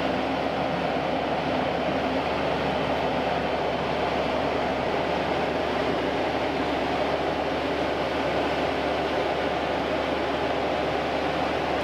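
A TYM tractor's diesel engine running steadily as the tractor creeps forward to line its front loader up with a set of pallet forks.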